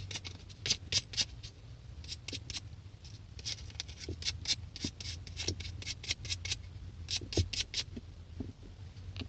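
A small spring from a Miata horn button being scrubbed clean: quick scratchy rubbing strokes, a few a second in irregular clusters, over a faint steady hum.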